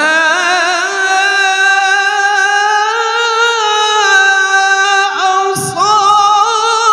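A male Quran reciter (qari) in tilawah style, singing in a high, sustained voice. He comes in abruptly and holds long, wavering, ornamented notes, with a brief break about five and a half seconds in.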